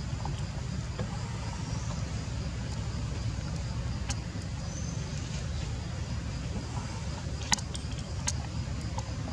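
Outdoor background: a steady low rumble with a faint, steady high-pitched whine. A few sharp clicks come near the end.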